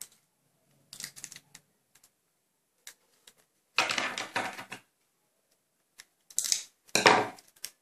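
Paper crinkling and being handled, with sticky tape pulled off a desk tape dispenser in a rasping burst about four seconds in. More short crinkly bursts of paper and tape come near the end.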